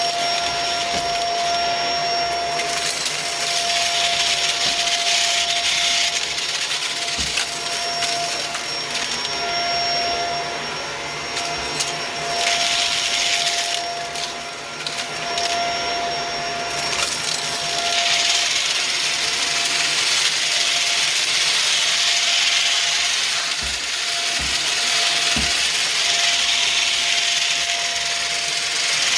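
Vacuum cleaner running with a steady motor whine, its rushing air hiss swelling and fading every few seconds, with gritty crunching as it picks up dry debris. A few faint low knocks sound near the end.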